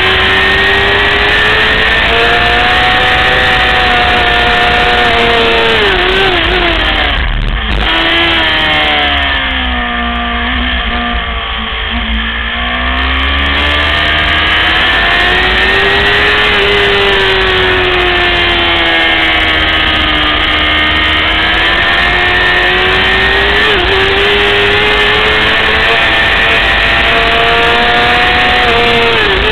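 600 cc racing motorcycle engine at race pace. Its pitch swells and falls as the revs change, drops sharply in steps about seven seconds in, stays low for about five seconds, then climbs again, with brief dips at gear changes.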